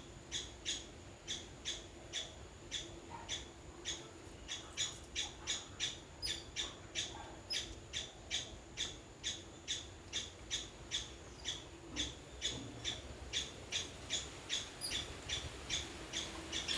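A bird calling over and over in a fast, even series of short, high notes, about two or three a second.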